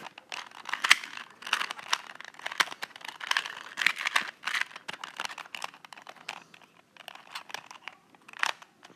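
Plastic ShengShou 2x2x2 speed cube being turned quickly by hand, its layers clicking and clacking in rapid runs that thin out in the last few seconds.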